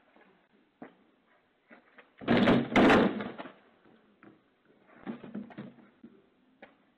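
A low wooden fence panel gives way and crashes down under a man's weight as he tries to climb over it: one loud crash about two seconds in, lasting about a second. Smaller knocks and scrapes of wood follow a couple of seconds later. It is picked up through a video doorbell's microphone.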